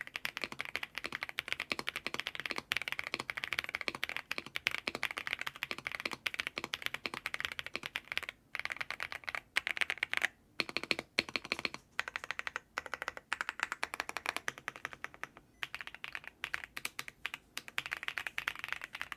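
Typing on a KZZI K98 mechanical keyboard with Rain Linear switches, leaf-spring gasket mount and full foam inside: a fast, continuous run of keystrokes with a few brief pauses.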